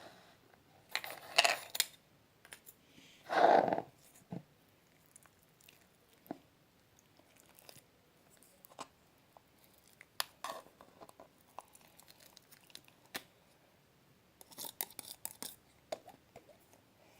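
Slime being squeezed and stretched by hand, crackling and popping in short bursts with scattered small clicks in between.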